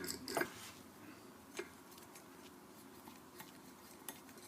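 A few faint clicks of metal parts being handled during disassembly of an air compressor, the clearest near the start and about a second and a half in, over quiet room tone.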